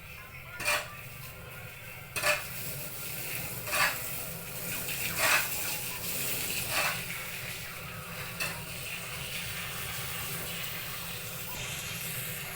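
Short scraping strokes of a tool working through a sawdust mixture, one about every second and a half, over a steady hiss; the strokes die away after about eight seconds.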